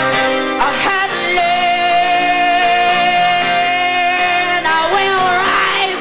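A woman singing live, holding one long, slightly wavering note over guitar accompaniment, with sliding vocal phrases before and after it.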